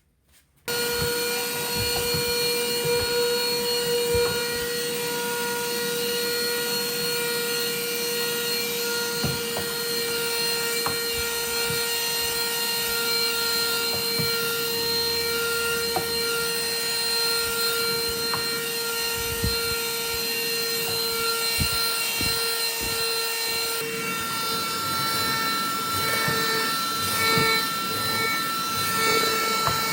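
Han River vacuum cleaner motor switching on about a second in and running steadily with a whine over a rushing hiss; its pitch shifts slightly about two-thirds of the way through.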